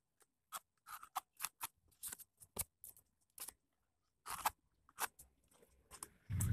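Plastic spreader scraping and dabbing thick white wall putty onto a rough rendered wall: a run of short, irregular scraping strokes. A louder steady noise comes in right at the end.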